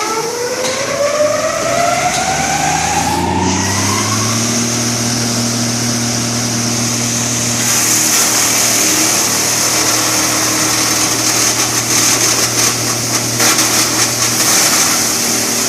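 Wood crusher's motor and rotor spinning up with a rising whine over the first four seconds, then running at a steady hum. From about eight seconds in a louder rushing hiss joins, with rapid knocks.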